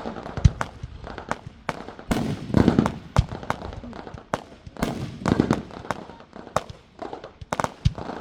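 Fireworks going off: a rapid, irregular string of sharp bangs and pops, with a couple of deeper booms among them.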